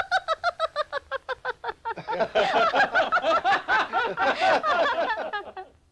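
People laughing. One high-pitched voice laughs in quick 'ha-ha-ha' bursts, about six a second, and about two seconds in several voices join, laughing together before stopping near the end.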